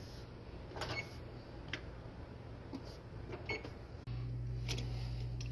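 Electric oven's touch-pad control beeping a few times as it is keyed on, then about four seconds in a louder low electrical hum starts as the oven powers up.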